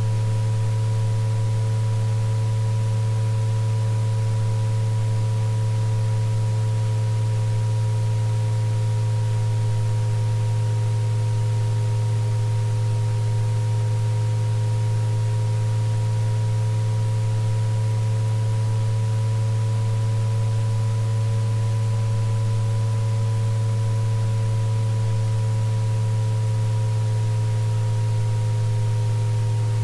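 Synthesized sound-therapy sine tones: a strong steady low hum with several fainter higher tones layered above it that drift slowly up and down in pitch, over a faint hiss.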